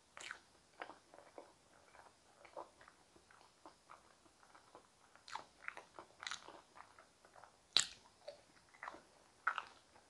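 Chewing and biting of soft steamed potatoes, with an irregular string of short mouth clicks and smacks; the sharpest click comes about eight seconds in.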